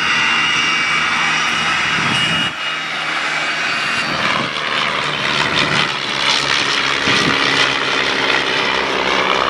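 Piston-engined vintage propeller trainer, a Miles Magister, droning as it flies a close pass, its engine tone shifting about two and a half seconds in.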